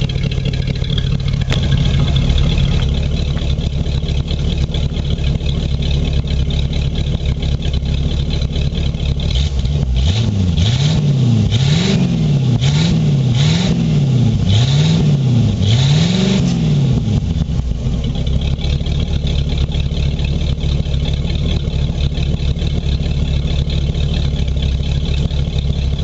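1979 Ford Bronco's V8 heard at its dual exhaust tailpipes, idling, then blipped about six times in quick succession over roughly seven seconds before settling back to idle. The engine is known to be running with a miss.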